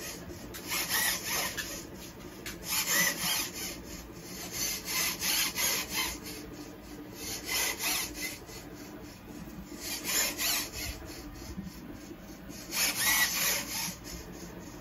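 High-torque RC servos on a scale truck's active suspension whirring in short bursts, about six times, each with a brief rising-and-falling whine, as the Superscale 2020 module drives them to raise and lower the corners.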